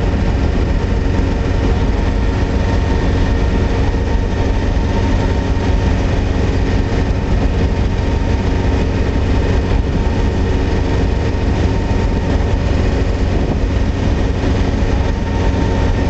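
A truck's engine and road noise at steady highway cruising speed: an even, low drone with a constant hum above it, no changes in speed or gear.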